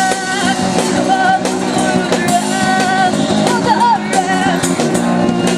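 Live band playing rock music: a singer's melody over guitar and drums, with a steady beat.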